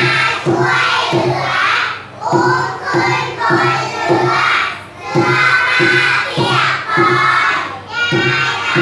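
Children's voices singing together over music with a steady beat, about two beats a second.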